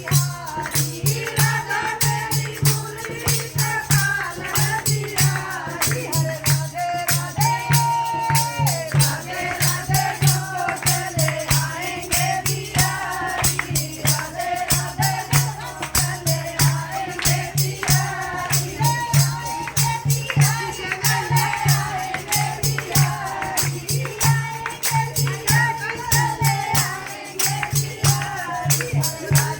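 Group of devotees singing a Hindu kirtan (devotional chant), with percussion keeping a fast, steady beat and a low pulsing accompaniment underneath.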